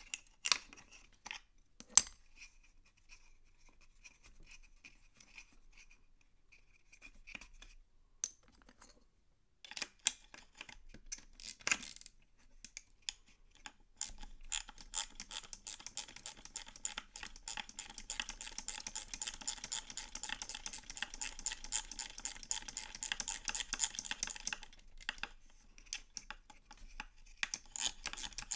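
Small micro ratchet with a 5/16 socket clicking as it is worked on a fastener inside the chainsaw housing. A few scattered clicks and knocks come first, then a long run of rapid ratchet clicking about halfway in, which pauses and starts again near the end.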